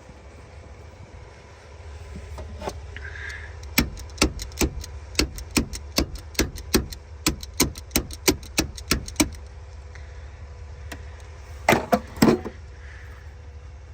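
Ratchet wrench clicking in an even run of about three clicks a second, tightening a battery fitting, then two louder knocks near the end.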